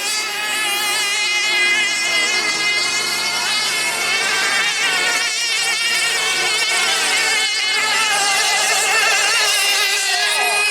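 Several radio-controlled A outboard model racing boats running on the course together, a steady high buzzing whine made of several overlapping pitches that keep wavering up and down as the boats go round.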